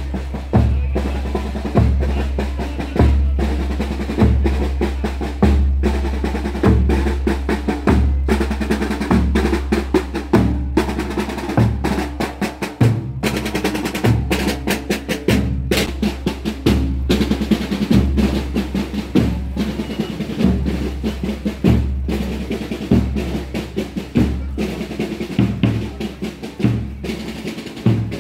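Procession drum band of bass drum and snare drums playing. A steady bass drum beat falls about once every second and a quarter under rapid snare rolls and strokes.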